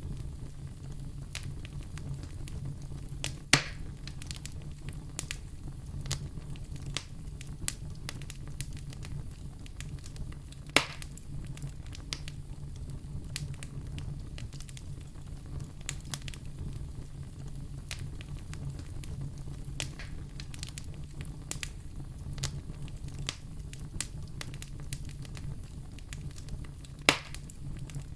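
Wood fire in a fireplace crackling steadily, with many small ticks and three sharp, louder pops spread through, over a steady low rumble.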